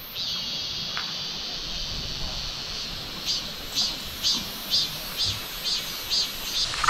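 Insects singing in the summer trees: a steady high buzz, joined about three seconds in by a pulsing high call repeating about twice a second.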